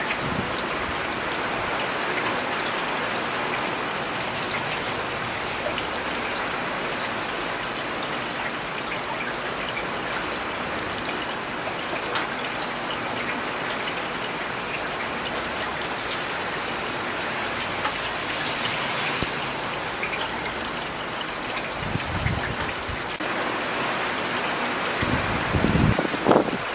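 Steady rain falling on city surfaces, a continuous hiss with scattered individual drops ticking. A couple of low thumps swell up near the end.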